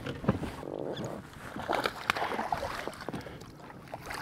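Irregular knocks and clatter of handling in a bass boat as a bass is landed and brought aboard.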